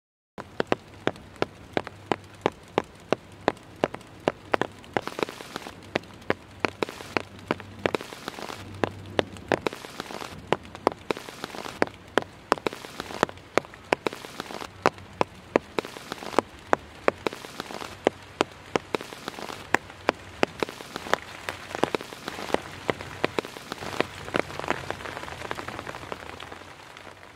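Rain falling, with a steady patter and many separate, louder drops tapping close by, two or three a second. It fades out near the end.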